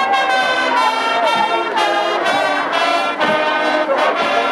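High school marching band playing a brass-led piece: trumpets, trombones, saxophones and sousaphone over drum hits on a steady beat of about two a second.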